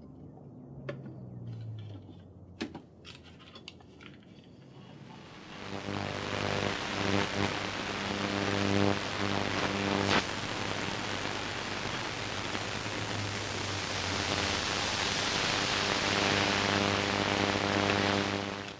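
A few faint clicks, then about five seconds in a steady static hiss with a low electrical buzz under it comes on and holds.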